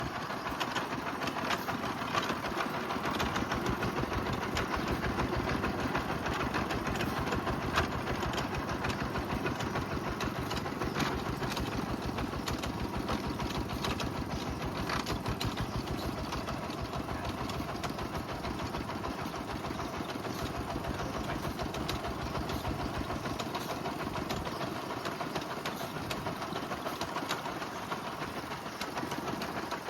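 Rock-cutting well-drilling machine running steadily with a fast mechanical chatter as it bores the well hole through rock.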